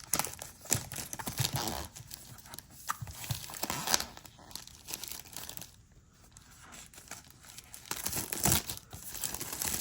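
Plastic shrink wrap being torn and peeled off a camera box, crinkling and crackling in irregular bursts, with a quieter lull around the middle.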